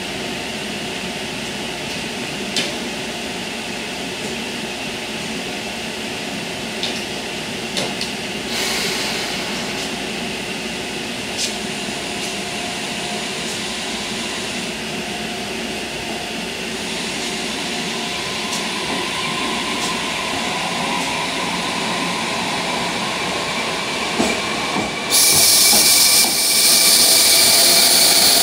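KiHa E200 hybrid diesel-electric railcar pulling away slowly from a standstill, with a steady machinery hum, a few sharp clicks, and an electric whine rising in pitch as it gathers speed. A loud hiss joins in near the end as the last car passes.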